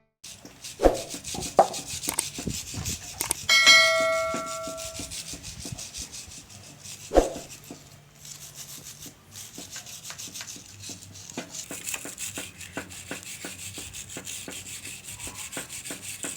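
Metal engine parts being handled and scrubbed: a few sharp knocks, one ringing metallic clang about four seconds in, then a run of quick, even scrubbing strokes through the second half.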